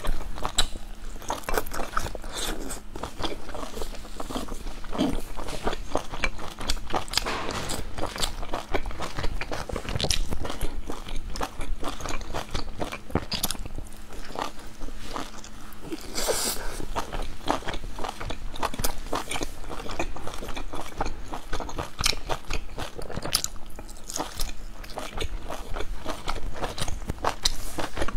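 Mukbang eating sounds: biting into and chewing large soft steamed dumplings, a dense, uneven run of small mouth clicks and smacks.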